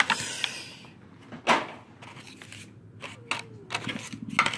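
Scattered clicks and light knocks of a plastic action figure and its small parts being handled, the sharpest click about a second and a half in.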